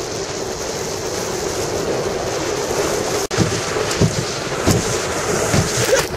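The 25 hp Mercury outboard on a small three-point hydroplane running at speed across the water, buried in heavy wind noise on the microphone. There are a few low thumps in the second half.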